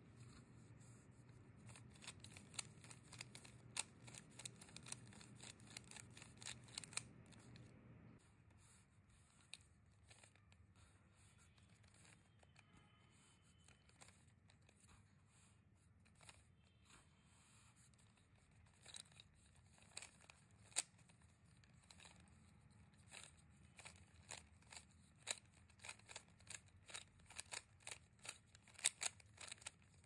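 Stickerless plastic 3x3 Rubik's-type cube being turned by hand: quick runs of sharp clicks as its layers snap round, busiest in the first few seconds and again over the last ten, with sparser clicks between.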